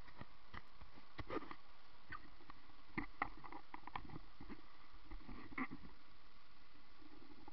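Muffled rush of white-water river around a bodyboard, with scattered knocks and splashes as it tumbles through the rapids, the sharpest about three seconds in and again near the end.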